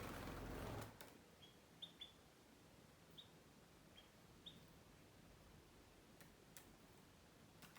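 A burst of rustling noise in the first second, then about six faint, short, high chip notes from wild canaries over the next few seconds, with a few soft clicks near the end.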